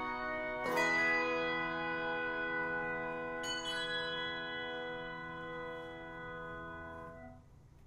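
A five-octave handbell choir strikes a full, sustained chord about a second in, with a few higher bells added about halfway through. The bells ring on and then all stop together abruptly near the end.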